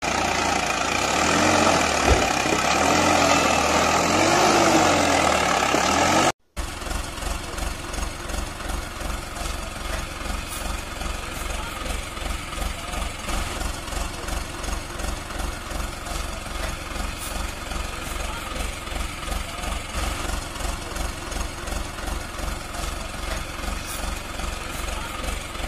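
Tractor diesel engine sound. First a louder, busier running stretch that cuts out briefly about six seconds in, then a steady idle with an even, rapid low chugging pulse.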